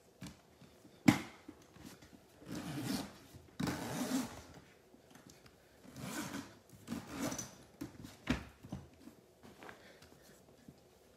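A coated-canvas and leather dog carrier being handled: a sharp knock about a second in, then several stretches of rubbing and rustling as its top flap is worked and its zipper run, and a click near the end.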